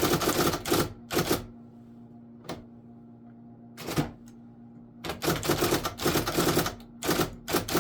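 IBM Correcting Selectric II electric typewriter typing in two quick bursts of rapid strikes, with a couple of single strikes in the pause between them, over the steady hum of its running motor.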